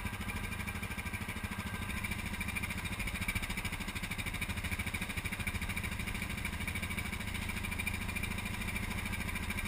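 ATV engines idling steadily with a quick, even putter.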